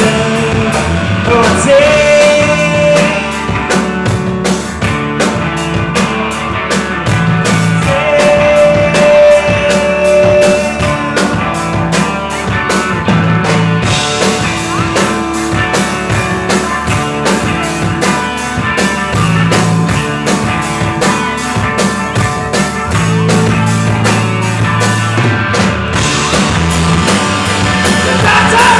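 Rock band playing live and loud: electric guitar over a drum kit, with long held notes rising out of the mix twice.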